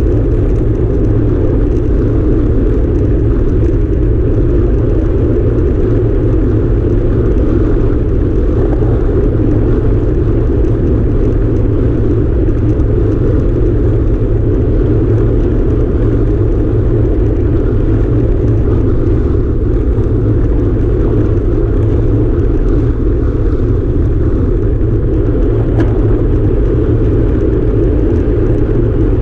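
Wind rushing over the microphone of a camera on a road bicycle's handlebars at racing speed, mixed with the hum of the tyres on asphalt. Loud and steady throughout.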